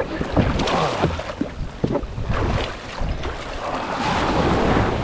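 Sea water splashing and washing around a kayak, with wind on the microphone: a run of irregular splashes in the first two seconds, then a broad wave-like surge near the end.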